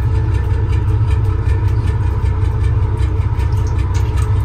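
Boat engine running steadily at idle, a continuous low rumble, with water sloshing in the lobster holding tank as a hand stirs it.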